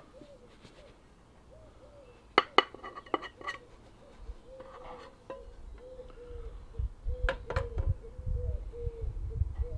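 Metal frying pan and ceramic plate clinking as a frittata is turned out of the pan onto the plate, in a cluster of sharp knocks about two and a half seconds in, then a couple more knocks near the end as the empty pan is set back on the portable gas stove. A pigeon coos repeatedly in the background.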